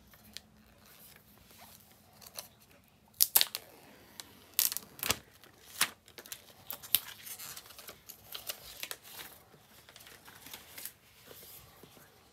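The seal of an iPhone 12 Pro Max box being torn off by hand: a few sharp rips about three to seven seconds in, then a run of crinkling and rustling as the strip comes away and the box is handled.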